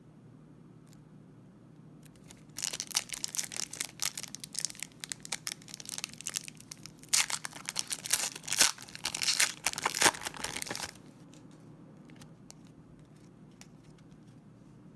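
Shiny foil wrapper of a trading card pack being torn open and crinkled by hand: an irregular crackling that starts about two and a half seconds in and stops abruptly about eleven seconds in, loudest around the middle.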